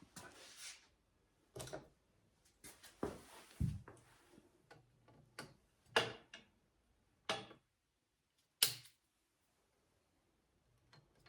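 Plastic zip ties being worked around a chain grinder's power cord: a string of separate sharp clicks and snaps, irregularly spaced, the loudest about six and about nine seconds in.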